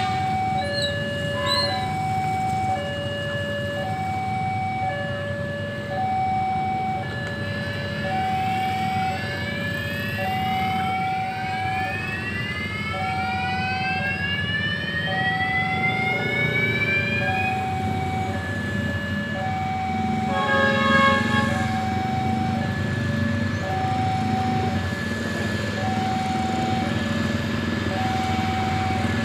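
Two-tone hi-lo siren on the SSP 203 rail vehicle, alternating steadily between a higher and a lower note about once a second over the rumble of the vehicle moving off. A rising whine sweeps up in the middle, and a short horn blast sounds about two-thirds of the way in.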